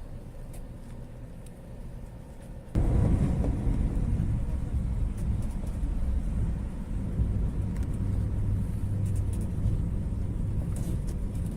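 Quiet background, then about three seconds in a loud, steady low rumble of a train starts abruptly and carries on.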